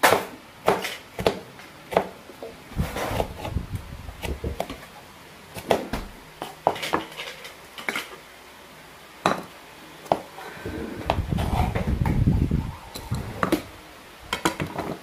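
Kitchen knife slicing chillies on a wooden cutting board: a run of sharp, irregular knocks of the blade on the board. Later comes a stretch of low rubbing and scraping as the slices are pushed across the board into a bowl, with a few more clicks near the end.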